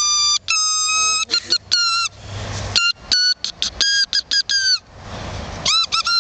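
Grass-blade whistle blown between the thumbs: a run of shrill squawking toots, a couple held briefly at the start and then many short ones, each tending to drop in pitch as it ends, with a short pause before a new burst near the end.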